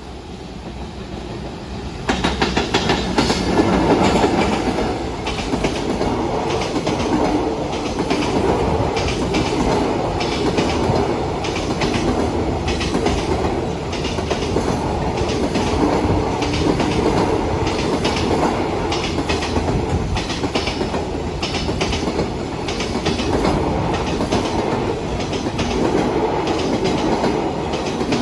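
Container freight train hauled by an electric locomotive passing at speed. It builds up, comes in suddenly loud about two seconds in, then runs on as a long string of wagons with rapid clickety-clack from wheels over rail joints.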